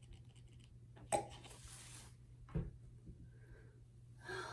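A sharp tap about a second in and a duller thump a second and a half later, from a plastic squeeze bottle of acrylic paint being handled and set down, over a faint steady hum.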